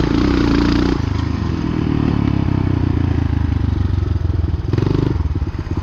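Honda XR200 dirt bike's single-cylinder four-stroke engine running under way on a trail ride, heard from on the bike. The revs drop about a second in and pick up briefly near the end.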